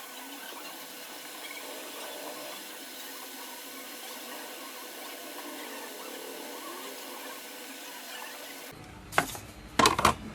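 Faint steady airy hiss of a hot air rework station blowing on the phone's circuit board while the newly placed audio IC reflows. Near the end the sound changes abruptly and a few sharp knocks follow.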